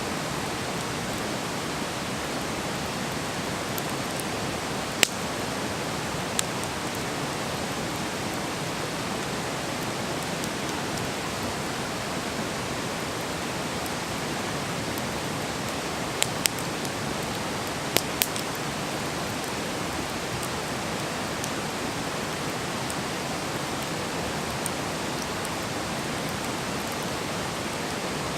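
Campfire burning with a steady hiss, broken by a few sharp wood pops and crackles; the loudest pop comes about five seconds in, and a small cluster about sixteen to eighteen seconds in.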